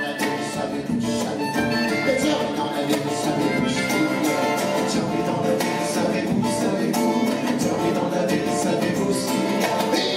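Live Québécois folk music: an acoustic guitar strummed in a steady rhythm, with voices singing.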